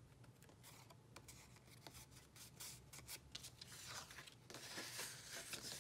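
Faint rustling and light tapping of cardstock being handled, with denser rubbing about four seconds in as a glued paper circle is pressed down onto card.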